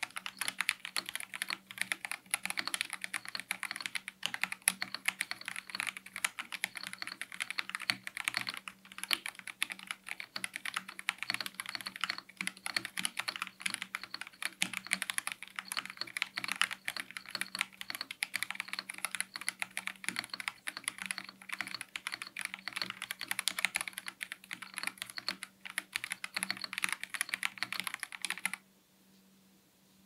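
Fast, continuous typing on an LTC NB1041 Pro mechanical keyboard with stock Huano Red linear switches, thick ASA-profile PBT keycaps and silicone dampening: a dense stream of keystroke clacks that stops suddenly near the end.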